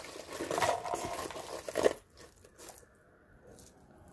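Rustling and crinkling of packaging as a cardboard box is handled, with a sharp crackle a little before halfway, then only faint handling noise.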